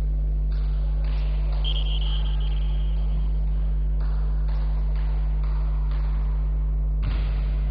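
Loud, steady low electrical hum over faint sports-hall noise, with a short, steady high tone about two seconds in.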